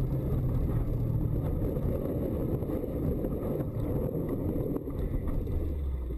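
Car engine and road noise heard from inside the cabin, a steady rushing drone, as the car slides off a snowy road and ploughs into deep snow.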